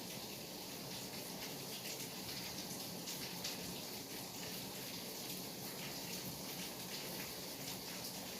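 Steady rain falling, a continuous hiss with a fine patter of individual drops.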